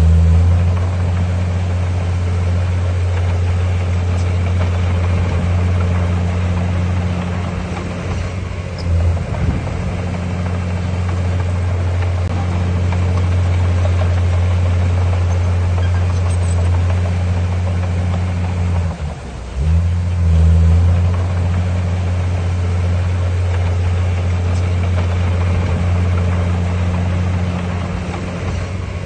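Heavy earthmoving machine's diesel engine running steadily and loudly. The engine note dips and changes briefly twice, about a third of the way in and again around two-thirds of the way through.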